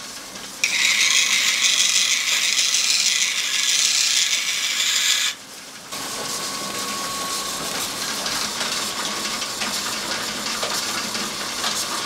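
Steel kitchen knife blade pressed against a large, motor-driven rotating sharpening stone wheel: a loud, even grinding hiss that breaks off about five seconds in. It is followed by quieter, rougher grinding with a faint steady whine and a few light ticks.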